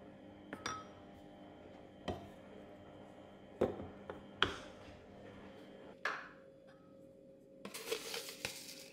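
Wooden spoon knocking and scraping against a ceramic bowl as flour is spooned in: about five light separate knocks a second or so apart, then a short scraping rustle near the end.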